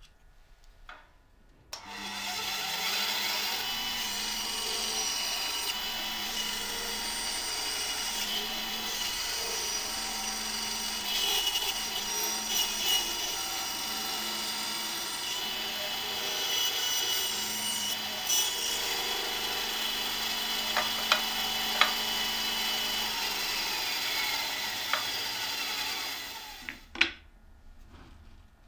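Benchtop band saw running and cutting through small plywood pieces, a steady machine hum under the hiss of the blade in the wood. It comes in about two seconds in and cuts off abruptly near the end, followed by a couple of sharp clicks.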